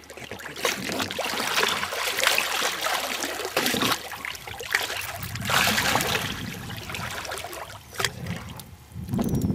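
Water splashing and churning at the surface in repeated surges as wels catfish tear at a floating dead carp.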